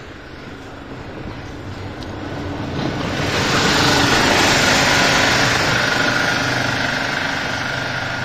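A big lorry on the road, its engine running under a rushing hiss that swells over the first few seconds and then slowly eases, with a steady whine from about halfway through.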